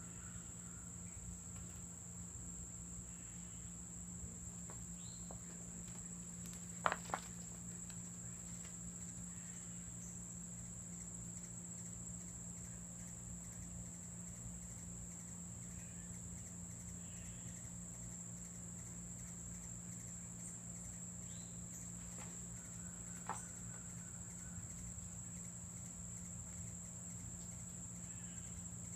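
Steady high-pitched insect drone with a low steady hum beneath it. A brief sharp double knock comes about seven seconds in and a smaller knock about twenty-three seconds in.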